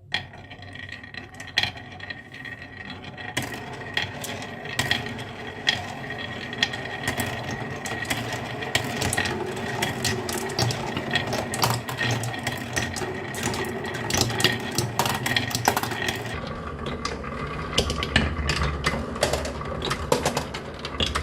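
Marbles rolling and clacking down a marble run track, a dense stream of small clicks and knocks over a steady rolling rumble.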